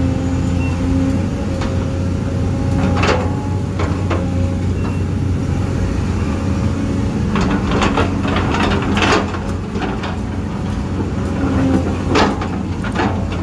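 Huina 1550 RC excavator's small electric gear motors running with a steady whine and hum, with scattered clicks and knocks as the machine digs, clustered around the middle and again near the end.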